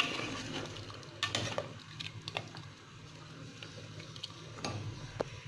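A metal ladle stirring broth in a metal pot, knocking against the pot a few times, mostly about a second in and again near the end, over the soft bubbling of the simmering pork-trotter broth.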